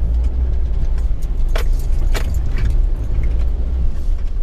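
Mitsubishi Triton ute driving slowly along a wet, bumpy dirt track, heard from inside the cab as a steady low rumble, with a few sharp clicks and rattles, the loudest about a second and a half and two seconds in.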